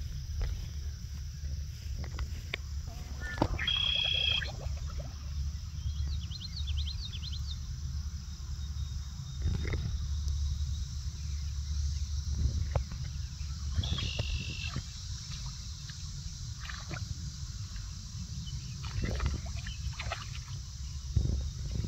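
Steady low wind rumble on the microphone, with a few short high chirping calls about four seconds in and again midway, and scattered brief knocks and clicks.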